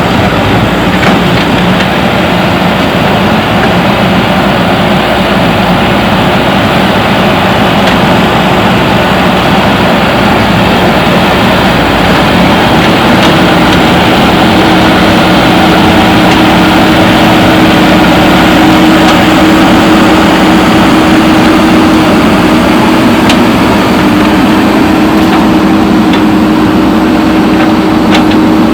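JCB backhoe loader's diesel engine running steadily under work, with a second, higher steady hum joining about halfway through.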